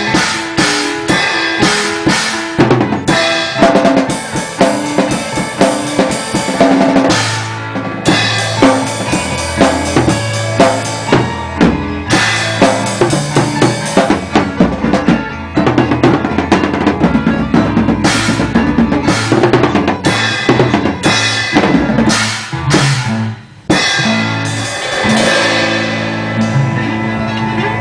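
A drum kit with bass drum and snare being played in a busy rhythm, together with other instruments including a bass line. The music breaks off briefly about three-quarters of the way through, then carries on.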